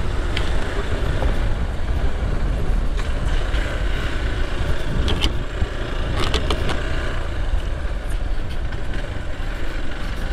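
Motorcycle being ridden: a steady mix of engine and road noise under heavy wind rumble on the microphone, with a few sharp clicks and rattles.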